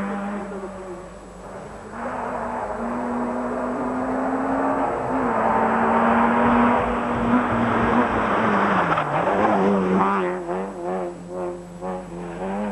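Rally car engines revving hard as the cars pass at speed, the pitch holding, then dropping and climbing again through gear changes, loudest around the middle. Near the end the revs rise and fall in quick, uneven bursts.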